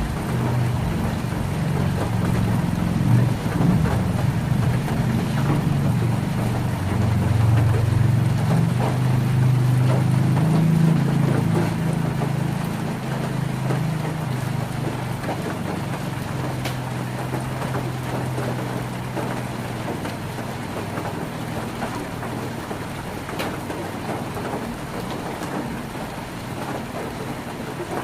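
Heavy rain on a tin roof, with a steady patter and scattered drop ticks. A long, low rumble of thunder swells over the first half, then fades away.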